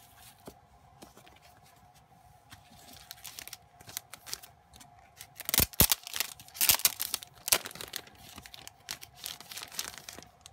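Clear plastic wrapper of a photocard pack being torn open by hand, crinkling loudly in a run of sharp crackles about halfway through and again near the end.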